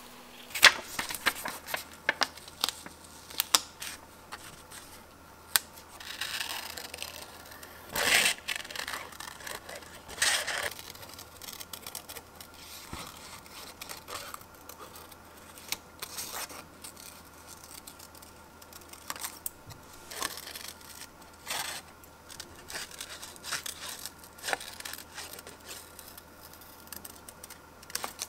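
Metal scissors snipping through paper in many short cuts, cutting out hand-lettered words, with paper rustling and handling between the cuts.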